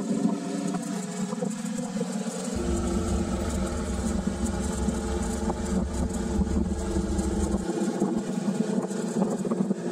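Motorcycle engine running at low speed. For about five seconds in the middle there is a low rumble under it.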